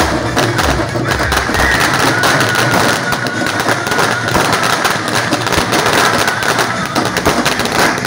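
A string of firecrackers going off in rapid, continuous cracks, with music underneath.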